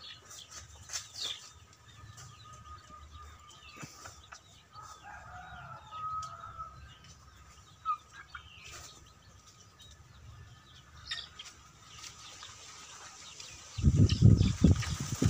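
Outdoor yard ambience with faint scattered bird chirps and a rooster crowing in the distance about five seconds in. Near the end a loud, low, gusting rumble hits the microphone.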